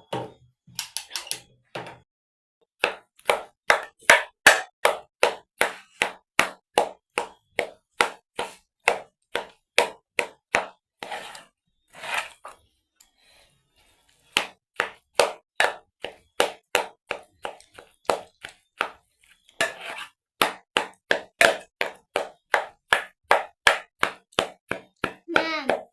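Hands clapping in a steady rhythm, about two to three claps a second, stopping for a couple of seconds near the middle and then starting again.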